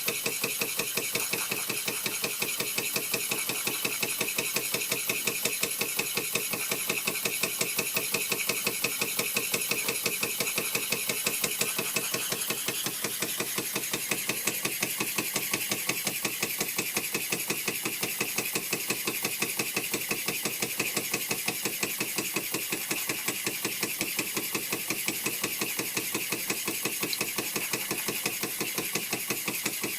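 Bing 10/12/2 toy live-steam engine running steadily under load, driving a small grinder: its exhaust chuffs out of the valve in a fast, even beat over a constant hiss of steam.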